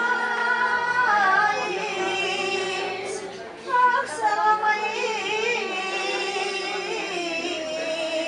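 Women singing a traditional Thracian folk song, with long held notes.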